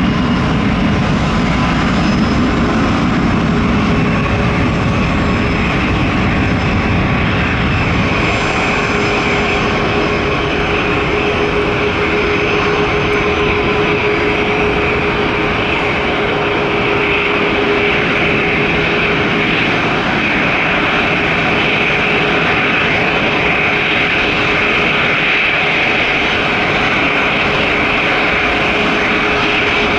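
Jet airliner engines running steadily: a loud, even engine noise with a high whine over it.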